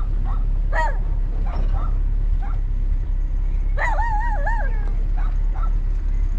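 Short high animal yelps, with one longer whine whose pitch wavers about four seconds in, over a steady low rumble.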